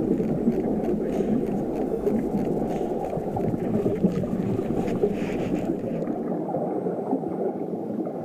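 Steady, muffled rumbling noise picked up by a helmet-mounted camera's microphone.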